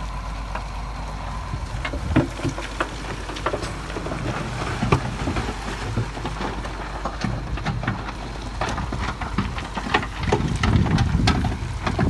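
Heavy earthmoving machinery's diesel engine running low and steady, under frequent sharp knocks and clatter of rock being pushed or dumped, with a few louder knocks about two and five seconds in and a busier burst near the end.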